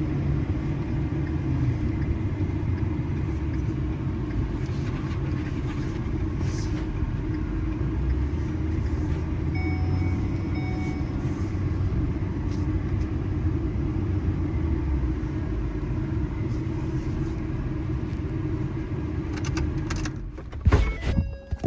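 Ford F450's 6.7-litre Power Stroke V8 turbo-diesel running steadily, a low rumble with no revving. A few sharp knocks sound near the end.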